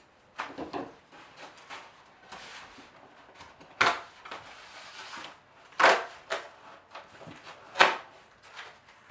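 A knife cutting through foam board: short scraping, crunching strokes, with three louder sharp crunches about two seconds apart.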